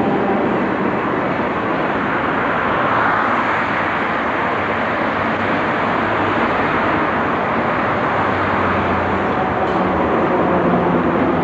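Munich trams running past on the adjacent track, their wheel and motor noise over a steady rush of road traffic.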